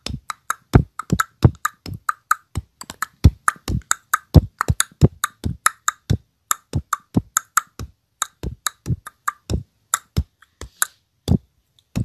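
Beatboxing: a fast, rhythmic run of short, sharp percussive mouth sounds, several a second, thinning out in the last few seconds.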